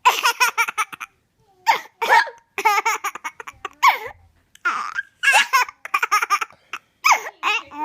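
A baby laughing in repeated short bursts, about a second apart, set off by a woman's hiccup noises.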